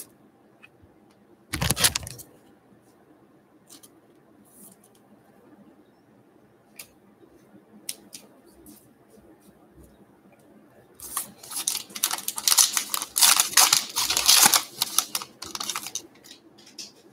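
Trading-card pack being opened and handled: a short rustle about two seconds in, scattered light clicks of cards, then several seconds of dense crinkling and tearing of the pack wrapper from about eleven seconds in.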